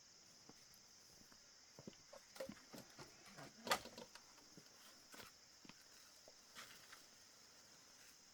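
Faint scattered taps and knocks, one sharper knock just under four seconds in, over a steady high hiss.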